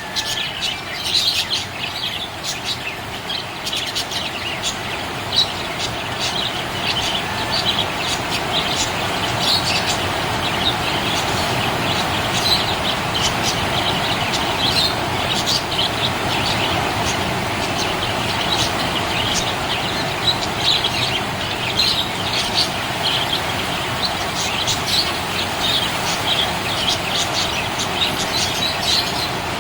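Budgerigar chirping, with many short, quick high chirps throughout over a steady background hiss.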